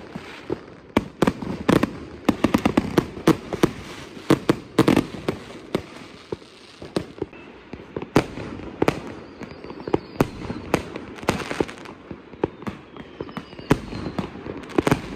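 Fireworks and firecrackers going off in many sharp, irregular bangs over a steady crackle, several bangs a second at their thickest in the first five seconds.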